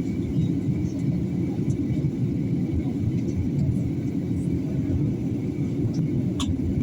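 Steady low rumble of engine and airflow noise inside an airliner's cabin in flight, with a faint steady whine above it. A brief click sounds near the end.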